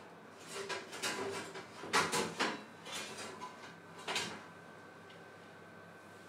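A metal spatula and a fluted metal tart tin scraping and clinking against the oven's metal tray as the tart is slid out. There are several short scrapes and knocks, the loudest about two seconds in, and none after about four seconds.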